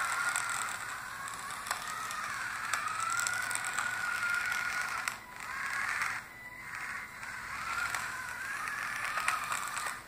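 Small DC gear motors of a two-wheeled robot car running, a geared whine whose pitch wavers up and down as the joystick changes speed and direction. It stops briefly twice about halfway through.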